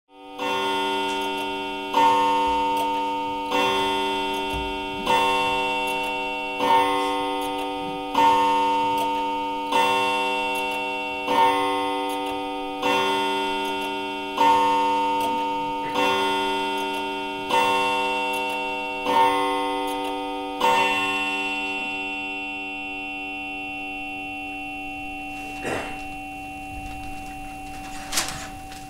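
Clock striking over a dozen times, one stroke about every second and a half, each stroke a bell-like chime that rings on and decays; the ringing dies away after the last stroke, and two short knocks follow near the end.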